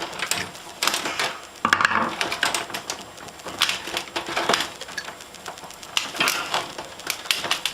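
Irregular cracking, knocking and scraping as a dusty CPU heat sink is forced off a computer, with a louder grinding stretch about two seconds in.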